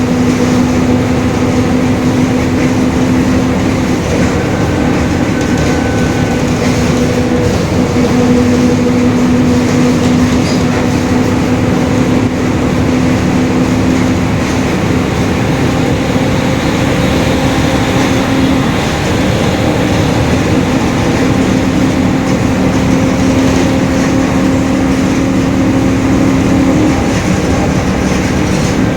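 Mercedes-Benz OF-1721 BlueTec 5 city bus driving, with a steady whine from the differential running over the engine and road rumble, its pitch shifting slightly a few times: the differential is howling.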